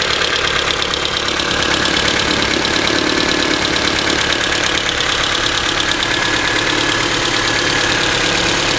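Engine idling with a rapid, even ticking from the cylinder head that persists after the valves were adjusted twice; the owner cannot tell what causes it.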